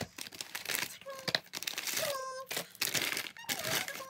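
Irregular crinkling and rustling of a plastic-wrapped chocolate package and a gift bag as the chocolate is pulled out and handled.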